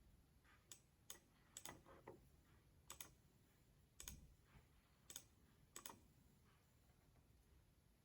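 Faint, irregular clicks of a computer mouse and keys, about eight in the first six seconds, over quiet room tone.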